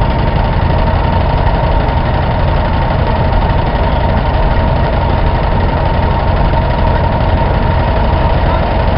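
Belt-driven threshing machine running steadily while being fed with sheaves, a constant hum with a steady pitched drone over the low rumble of the engine driving the belt.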